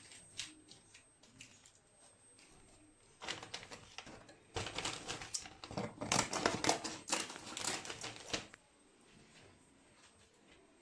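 Handling noise: a dense run of clicks, clatter and crinkling lasting about five seconds in the middle, with only scattered light clicks before and after.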